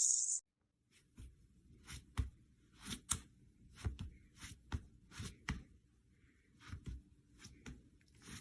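A brief hiss at the start, then, from about a second in, a run of irregular light taps and clicks, some with a soft thud, over a faint steady hum.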